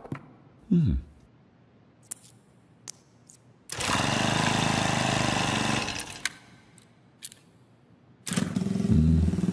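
A few light clicks, then a small engine running for about two seconds, starting about four seconds in. Near the end a small motorcycle engine starts abruptly and keeps running.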